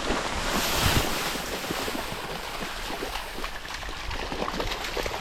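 Continuous rustling and crackling of dry grass and cattails being pushed through on foot, with a low rumble of air buffeting the microphone.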